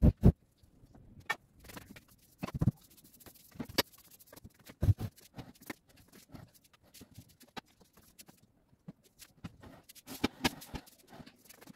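Irregular knocks, bumps and thumps of a sofa and cushions being shifted and set down, the loudest two thumps right at the start and a busier run of knocks near the end.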